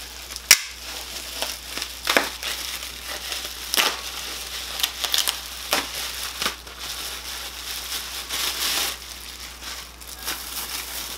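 Packaging being unwrapped by hand: crinkling and rustling with scattered clicks and knocks, the sharpest about half a second in.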